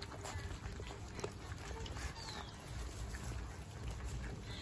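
A group of puppies eating soft food from plates, with scattered small clicks and smacks of lapping and chewing.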